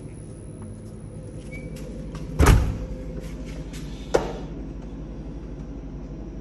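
Garage side door swinging shut with a heavy thud about two and a half seconds in, followed by a lighter knock about a second and a half later.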